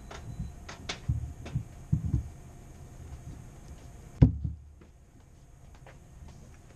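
Handling noises: several dull thumps, then one sharp knock about four seconds in, as the statue and its packaging are moved about.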